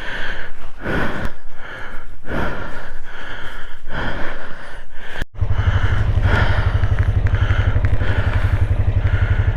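Repeated noisy strokes about twice a second for the first half, then, after an abrupt cut, a small engine running steadily at a low, even speed.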